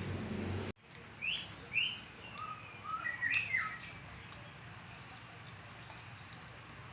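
A low hum cuts off abruptly under a second in. Then a bird chirps, a run of about six short rising and falling calls over the next few seconds, over faint background noise.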